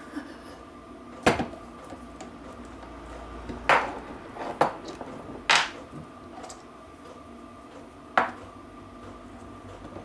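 Steel clanks and knocks of a bearing puller being fitted onto a differential crown wheel and steel parts being handled on a workbench: about five sharp metallic knocks at irregular intervals.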